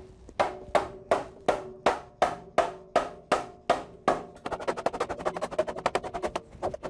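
Percussive background music: evenly spaced drum hits at about three a second, quickening to a faster roll of about six a second some four seconds in.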